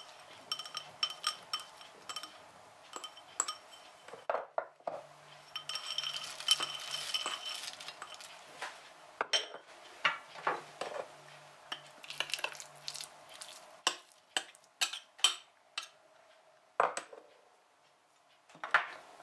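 Small china bowls and a metal spoon clink and knock against a glass mixing bowl as raisins, nuts and cranberries are scraped into batter. The clinks are scattered, and some ring briefly.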